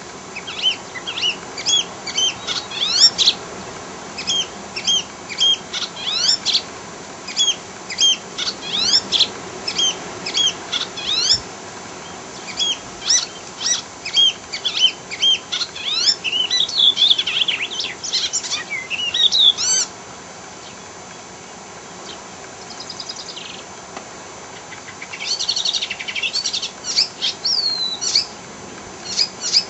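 Icterine warbler singing: a fast, varied run of high chirps, whistles and sliding notes, breaking off about twenty seconds in for a few seconds before starting again.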